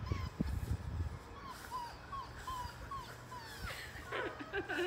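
Five-week-old Labrador Retriever puppies whimpering and yipping in a string of short, high squeaks, about three a second, with a busier burst of yelps near the end.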